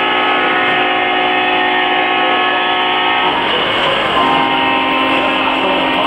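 Model diesel locomotive's onboard sound system blowing its horn in a long held blast, breaking off a bit past three seconds in, with a second held blast on different tones starting about four seconds in, over a steady background din.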